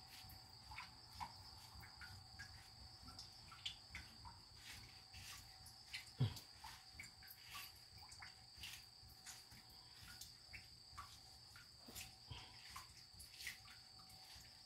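Near silence: faint, scattered light clicks and taps of food being handled while sushi is rolled by hand, with one slightly louder knock about six seconds in, over a steady high-pitched hum.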